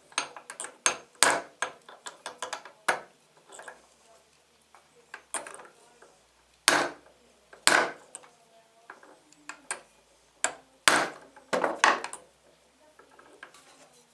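A light hammer tapping a bent steel stepper-motor shaft laid on a club hammer used as an anvil, to straighten it: sharp metal-on-metal taps at an uneven pace, with short pauses between them.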